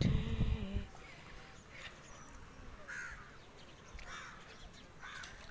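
Crows cawing: a series of short, harsh calls about a second apart.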